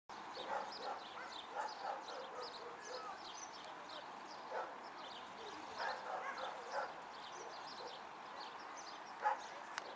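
A dog barking in short, irregular calls, several times over the outdoor background.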